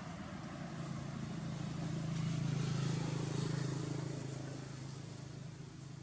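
A motor scooter driving past on the road, its engine hum swelling to a peak about two to three seconds in and then fading away.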